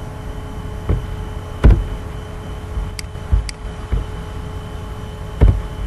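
Clicks from a computer mouse and keyboard during code editing, over a steady low hum, with two dull thumps, about one and a half and five and a half seconds in.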